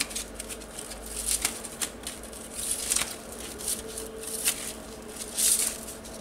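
Thin metal BGA reballing stencil plates rattling and clinking against each other as a stack of them is shuffled through by hand, in a series of short, irregular rattles.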